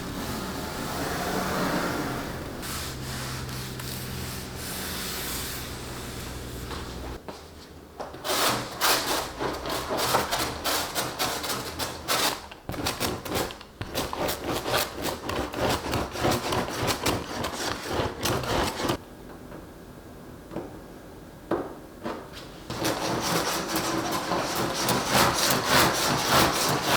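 Quick repeated rubbing strokes across the surface of a canvas painting, in two long runs with a pause between, as the painting is prepared and varnished.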